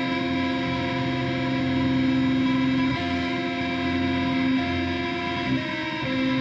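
Electric guitar through an amplifier, sustained chords held and ringing with a steady drone-like tone. The chord changes about three seconds in and again a few times near the end.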